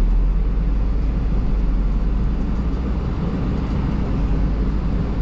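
Ford Transit minibus heard from inside its passenger cabin: a steady low engine and road rumble.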